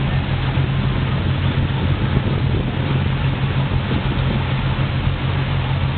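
Boat engine running steadily while underway, with wind and water rushing past.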